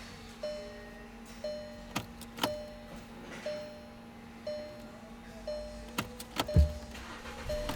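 Car's electronic warning chime sounding over and over, about once a second, above a steady low hum. A few sharp clicks and one loud thump come near the end.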